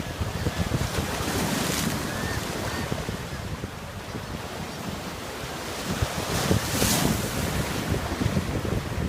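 Ocean surf washing onto the beach, with two waves breaking, about a second and a half in and again near the seven-second mark. Wind buffets the microphone throughout.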